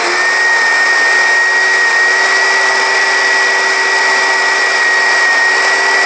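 Oreck XL upright vacuum cleaner's motor running with a steady whine. The brush roll still does not spin properly because its drive belt is burnt and cracked.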